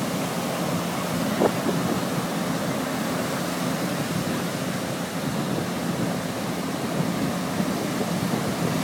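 Surf breaking and washing on a sandy beach, with wind buffeting the microphone. Under it runs the steady low hum of an engine, with a brief knock about a second and a half in.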